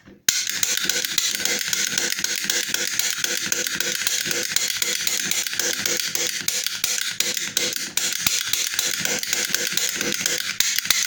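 A small powered lock-picking tool buzzing steadily in a pin-tumbler door cylinder, starting suddenly and cutting off abruptly, with a fast even pulse; it sets no pins against the spool pins.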